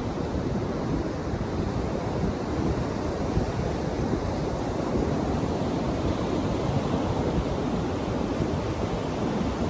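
Ocean surf breaking steadily on a sandy beach, with wind buffeting the microphone and adding a low rumble.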